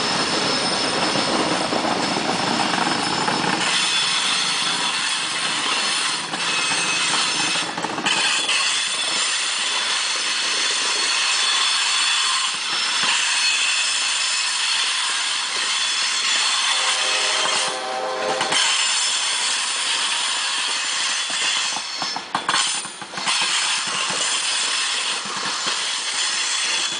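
Freight cars of a long CSX train (loaded open hoppers and gondolas) rolling past at close range: a steady rumble and rattle of wheels on rail, with a continuous high-pitched wheel squeal. There is more low rumble in the first few seconds, and a brief lower-pitched tone comes about two-thirds of the way through.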